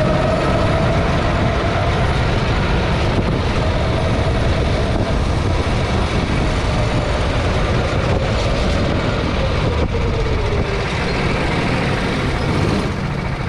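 Go-kart engine running at part throttle with low wind and rumble noise on the onboard microphone; the engine note drops about ten seconds in as the kart slows into the pit lane.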